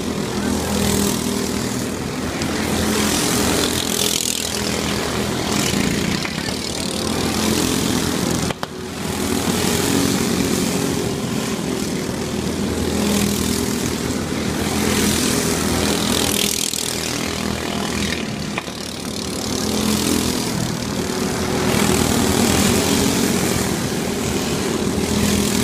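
Several dirt-oval racing karts' small engines running laps together, their buzz swelling and fading every few seconds as the karts pass by.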